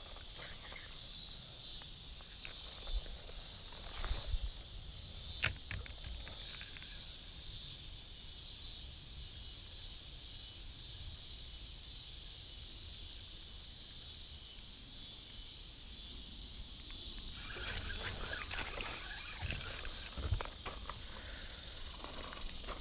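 Insects calling in a steady, high chorus that swells about once a second. A few sharp clicks come around four and five and a half seconds in, and rustling starts about three-quarters of the way through.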